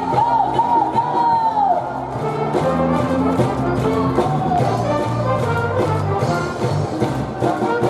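Brass band music led by trumpets, a melody with bending notes over held low notes, typical of a baseball cheering section's fight song.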